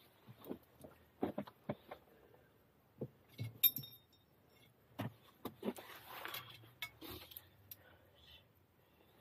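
Scattered knocks, scrapes and clicks of an ormering hook and hands working among shore rocks to prise an abalone from a crevice, with one sharp, ringing metallic clink about three and a half seconds in.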